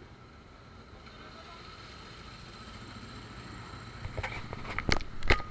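Handling noise on the camera: a cluster of sharp knocks and rubbing clicks from about four seconds in as a gloved hand grips the camera. Before that there is only a faint steady background rumble.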